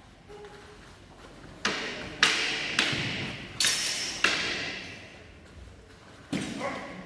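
Synthetic messer blades clashing in a fencing exchange: a quick run of five sharp knocks within about three seconds, then one more near the end, each echoing in a large hall.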